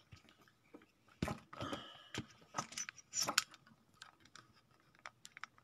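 Handling noise from a phone being moved about: scattered clicks, knocks and rustles, busiest between about one and three and a half seconds in.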